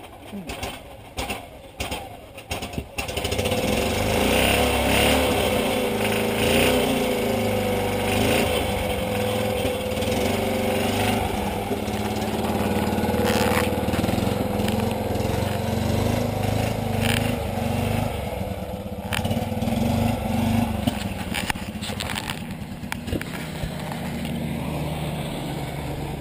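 BMW Isetta 300's small single-cylinder engine starting up about three seconds in and then running, its pitch shifting a little as the car is driven.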